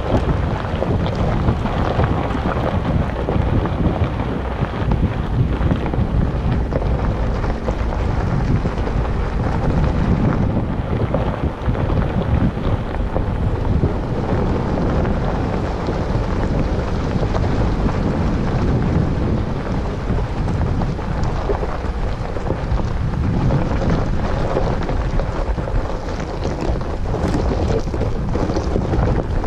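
Steady wind buffeting the microphone over the rumble of a Jeep Wrangler Unlimited rolling down a rocky gravel road.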